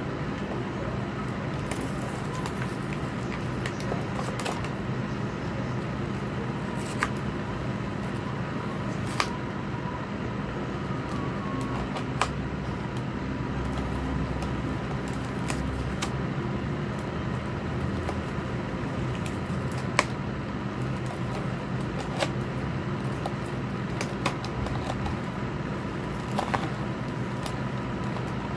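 Sharp clicks and crackles every few seconds as the packaging of a boxed pair of Bluetooth earbuds is picked and pried at by hand, over a steady background hum.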